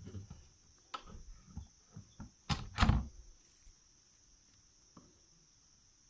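Plastic knocks and clunks as a washing machine's drain hose is handled against a plastic bucket, with two louder thuds about two and a half seconds in.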